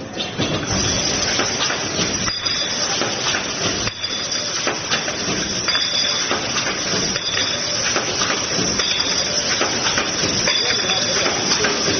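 Automatic pipe cutting machine running: a steady, dense mechanical noise full of small clicks, with a slight change that repeats about every one and a half seconds.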